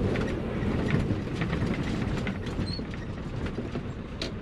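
Mazda T3500 truck's engine running, heard from inside the cab, with a steady low rumble and many small rattles and clicks, and one sharper click about four seconds in.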